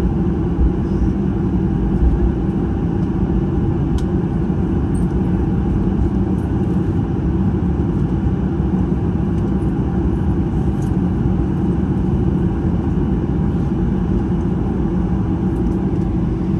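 Steady cabin noise inside a Boeing 737-800 taxiing after landing: a low rumble from its CFM56 engines at idle with a steady hum. A few faint ticks sound through it.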